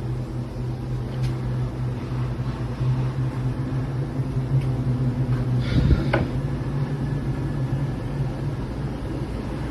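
Roomba robot vacuum running, a steady motor hum, with a brief clatter about six seconds in.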